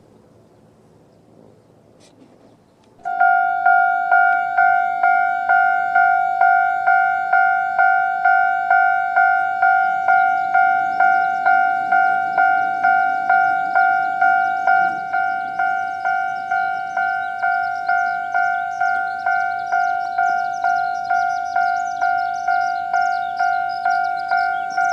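Japanese railway level-crossing warning bell starting up about three seconds in, then ringing steadily in even, repeated two-tone strikes, about two a second, signalling an approaching train.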